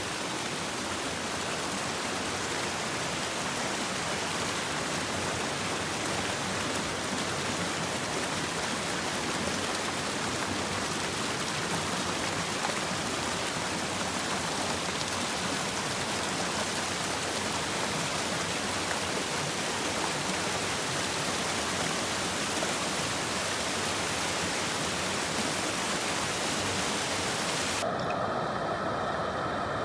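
A swollen mountain creek rushing steadily, its water full from rain and snowmelt. About two seconds before the end it cuts abruptly to a different, quieter steady noise.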